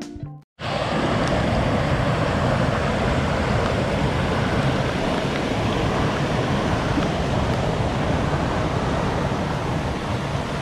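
Small waterfall on a forest stream, water rushing steadily, starting about half a second in after a brief silence.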